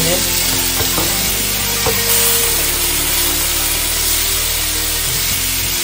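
Raw beef mince sizzling as it hits a hot non-stick wok, with a wooden spatula scraping and stirring it against the pan, over steady background music.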